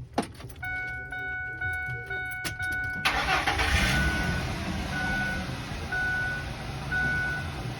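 2005 Ford F-150 engine cranking and catching about three seconds in, then idling steadily after a fresh oil change. A few clicks come first, and a cab warning chime beeps repeatedly.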